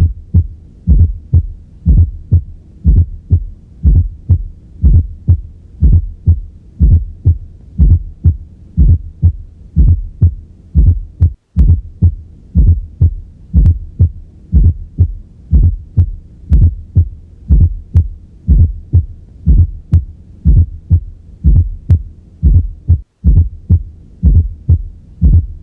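Recorded heart sounds with a fourth heart sound (S4, atrial gallop): a steady run of low thumps in the 'Tennessee' cadence, a soft S4 just before S1, then S2. The S4 is the sign of the atria pushing blood into a stiff, hypertrophied ventricle under pressure overload.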